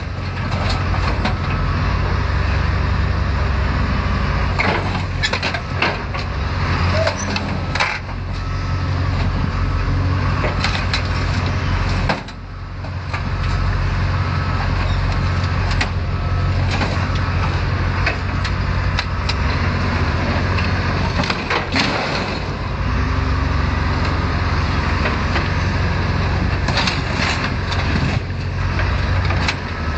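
Caterpillar wheel loader's diesel engine running steadily under load as it crushes a burned-out SUV body, with repeated sharp cracks and crunches of bending metal. The engine sound drops briefly just past the middle.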